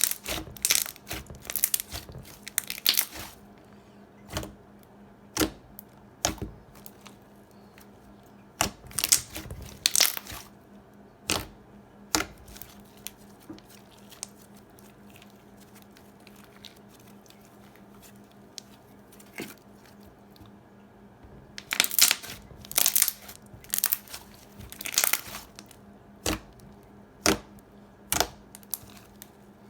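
Thick foam slime with big foam beads being squished and stretched by hand: sticky clicks, bubble pops and crackles in clusters, with quieter gaps between.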